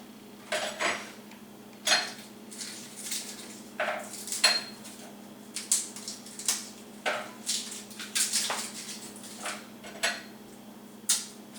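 A utensil stirring soup in a stainless steel pot, clinking and scraping against the pot in about a dozen irregular knocks.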